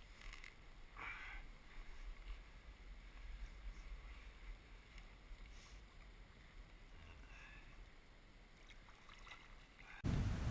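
Faint creek ambience: a steady low rumble with a light hiss of flowing water and a few soft clicks about a second in, then a sudden louder rush of noise near the end.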